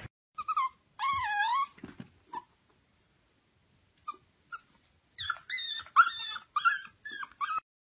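Corgi whining in high, wavering whines: one longer whine about a second in, then a quick run of short whines near the end.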